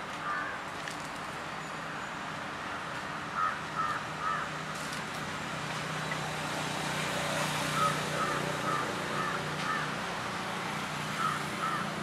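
An animal calling in short notes, in quick groups of three to five that come several times over a steady low hum.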